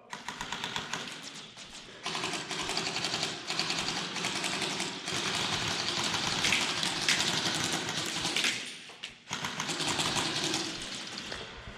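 Airsoft guns firing on full auto: a fast, continuous rattle of shots with a short break about nine seconds in.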